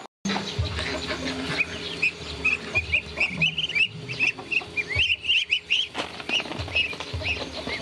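Ducklings peeping: a continuous stream of short, high cheeps, many overlapping, over a rustle of movement with a few low knocks.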